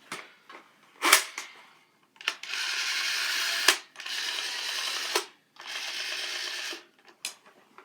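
Toy minigun's plastic mechanism clicking as it is pulled back, then three hissing bursts of firing noise about a second each, the first two ending in a sharp click.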